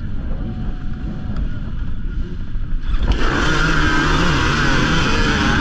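Dirt bike engines at a race start: a low rumble, then about three seconds in a pack of bikes, including a two-stroke Yamaha YZ250 under the rider, suddenly breaks into loud, continuous revving.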